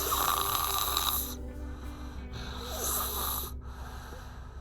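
A five-year-old child snoring in sleep: one snore from the start lasting over a second, then a second, shorter snore about three seconds in.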